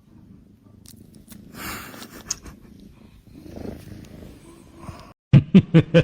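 Domestic cat purring, a low rough steady rumble. About five seconds in it cuts off, and a loud, fast rhythmic pulsing begins.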